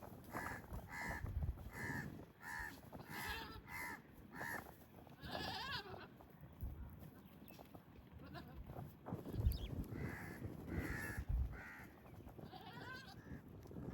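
Goats bleating: a run of short, quickly repeated calls, then a longer wavering bleat about five seconds in, with more calls near the end.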